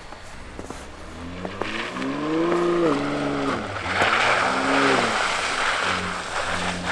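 Pickup truck engine revving up and dropping back twice as the truck pushes through deep snow. A hiss of tires churning snow is loudest on the second rev.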